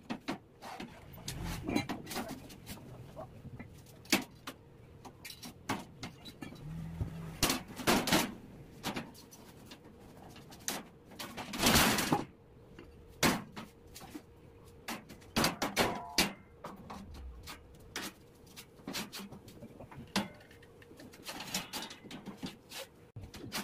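Metal boat-hull sheets being bent up with a wooden plank and a steel bar, giving irregular knocks and clanks, with a longer rattling clatter about halfway through.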